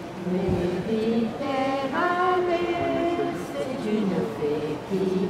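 Several voices singing a song together in long held notes that step from pitch to pitch.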